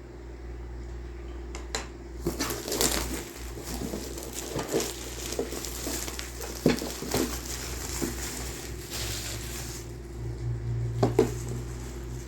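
Plastic shrink wrap being torn and crinkled off a model kit box: a dense crackling rustle with sharp little clicks and knocks that dies away about ten seconds in, followed by a couple of soft knocks of the box being handled.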